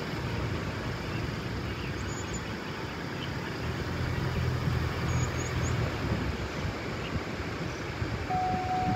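Steady low rumble of a vehicle's engine and road noise, with a hum rising a little in the middle. A steady high tone comes in near the end.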